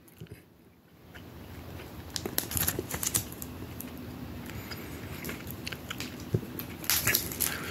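Plastic comic-book bags rustling and crinkling as bagged comics are handled, with scattered light clicks and taps. It begins about a second in.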